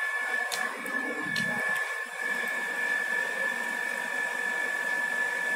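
Steady whirring of a small electric motor with a constant whine, with a few faint clicks in the first two seconds.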